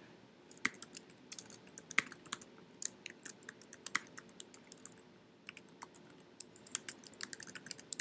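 Computer keyboard typing: faint, irregular keystrokes, with a short pause about five seconds in before the typing resumes.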